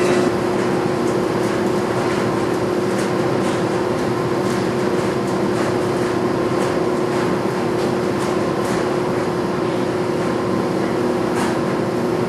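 Speed Queen 125 lb commercial washer-extractor running through its wash cycle, with a steady hum over the continuous noise of the machine, and tumble dryers running behind it.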